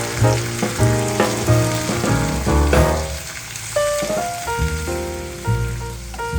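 Stir-fry sizzling in hot oil in a pan, under background music with a melody of held notes and a bass line.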